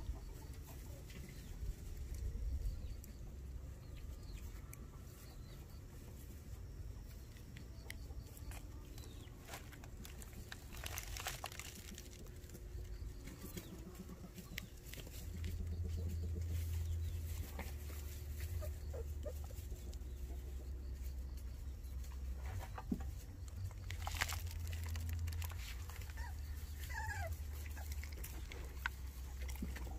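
White Jindo puppies moving about in grass and straw around a water basin: scattered rustles and light clicks, and a few faint high squeaks near the end, over a low steady rumble.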